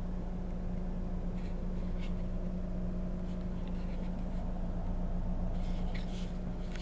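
Steady low hum of a car idling, heard from inside the cabin, with a few faint light rustles.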